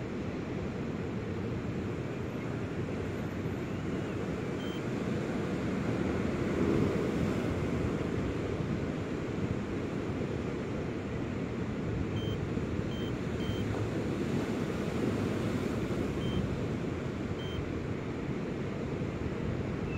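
Steady wind and surf noise, the wind blowing on the microphone.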